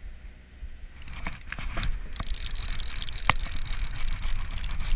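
Fishing reel being cranked, with rapid clicking and rustling handling noise. It starts about a second in and gets louder.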